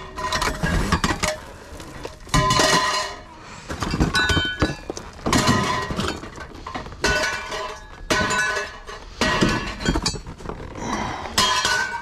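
Rubbish being rummaged through and tossed about in a dumpster: about eight separate clatters and clinks of hard objects such as glass bottles, several with a short ringing tone.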